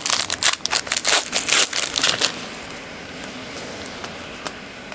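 Plastic wrapper of a trading-card pack crinkling and tearing as the pack is ripped open: a dense crackle for about two seconds, then it dies down.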